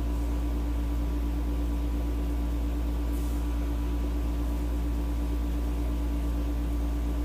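A steady machine hum with a constant low drone and a held tone, unchanging throughout.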